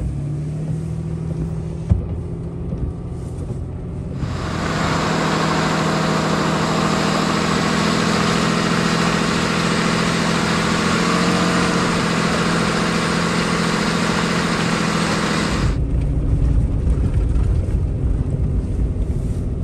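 Ram pickup driving on a wet gravel road. At first there is a steady low engine and road rumble heard inside the cab. From about four seconds in until near the end it is heard from outside by the front wheel: a loud, full hiss of tyres on the wet gravel with the engine's hum beneath, then it cuts back to the muffled rumble inside the cab.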